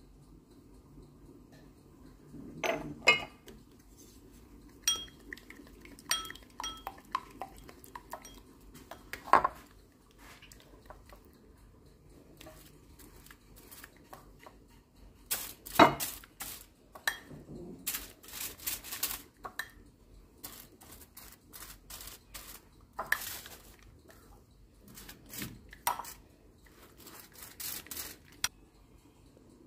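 A utensil clinking and tapping against a ceramic bowl of olive oil and dried rosemary, with several sharp ringing taps a few seconds in. About halfway through comes a busier run of scraping and rustling strokes as the oil is spread over raw eggplant slices on aluminium foil.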